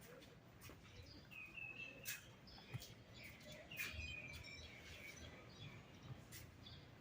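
Near silence with faint bird chirps: a short high call about a second and a half in and another about four seconds in, with a few faint clicks.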